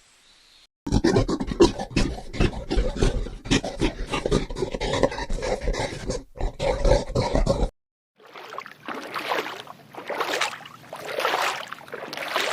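Farm animal sounds in two parts. First comes a long, loud run of rapid rough pulses. After a brief silence, breathy swells follow at about one a second.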